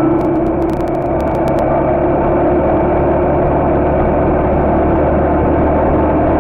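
Engine of a 125 cc Suzuki Intruder motorcycle running steadily at an even pitch, picked up by a camera mounted on the bike.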